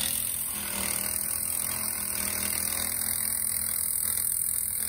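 Coleman CC100X minibike engine held at steady high revs, spinning its punctured rear tire against concrete in a burnout.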